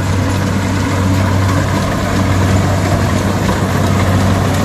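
An engine running steadily at an even idle-like speed, with a constant low hum.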